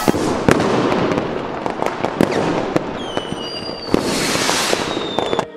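Fireworks going off: a rapid string of sharp bangs and crackles over a hiss, with a high whistle from about three seconds in. The sound cuts off suddenly near the end.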